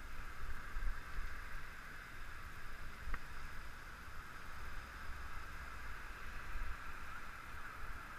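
Wind buffeting the microphone of a camera moving along a city street, over a steady hiss of road noise, with one faint click about three seconds in.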